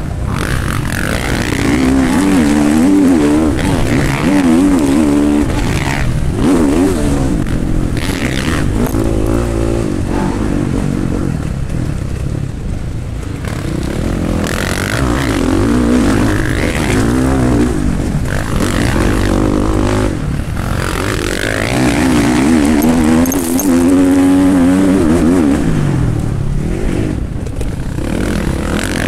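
Motocross bike racing, heard from a camera mounted on the bike: the engine revs rise and fall again and again as the rider works the throttle through turns and straights.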